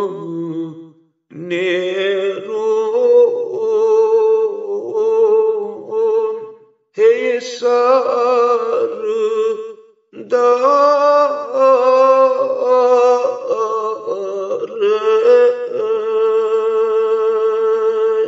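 A man singing a Kashmiri marsiya, a mourning elegy, unaccompanied, in long drawn-out phrases. The singing breaks off briefly about a second in, again near seven seconds and near ten seconds, and ends on one long held note.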